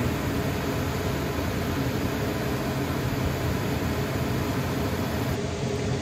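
Dometic RV furnace running, its blower giving a steady rush of air with a low hum. The furnace is now lighting and running properly after a new sail switch and with the vent piece back in place.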